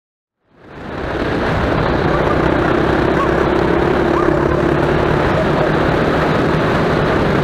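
A 125cc quad bike's engine running steadily under way, mixed with a constant rushing of wind and road noise. It fades in about a second in, after a brief silence.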